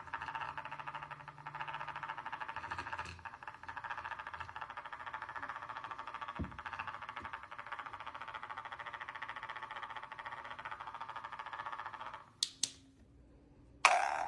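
Small electric stirring motor in the base of a self-stirring mug, running with a steady buzzing whir. It stops about twelve seconds in, and two sharp clicks follow. A sudden louder sound comes just before the end.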